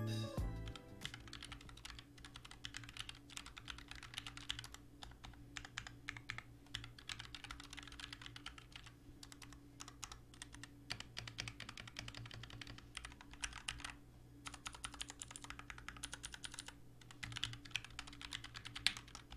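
Mechanical keyboard fitted with Gateron Silver Pro switches, not yet lubed, being typed on quickly and continuously in a rapid run of key clicks with a few brief pauses.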